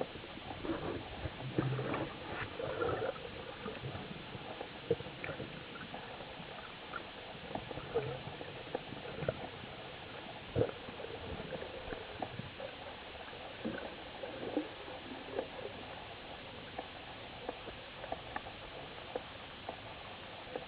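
Underwater sound picked up by the camera housing: a steady wash of water noise with scattered small clicks and knocks, one louder knock about halfway through.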